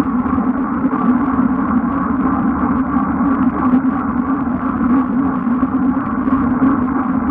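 Steady, muffled rush of wind and tyre noise from a road bike moving at racing speed on a wet road, picked up by a camera mounted on the bike.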